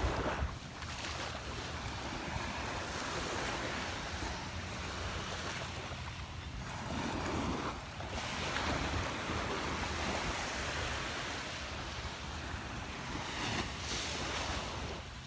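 Small Gulf of Mexico waves breaking and washing up on a sandy beach, a steady wash of surf that gently swells and eases. Wind rumbles on the microphone underneath.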